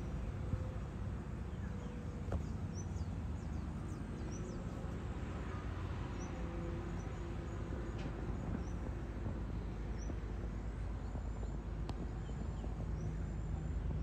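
Distant diesel construction machinery running, a steady low rumble, with birds giving short high chirps over it.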